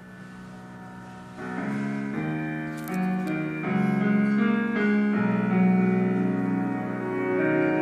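Music played through a 125 W + 125 W stereo amplifier board and its speaker as a sound test, with no bass or treble tone control fitted. A keyboard intro of held chords starts faintly and grows louder from about a second and a half in.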